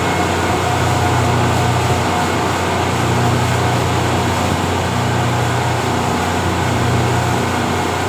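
Speedboat engine running steadily under way, with a constant rushing noise over it.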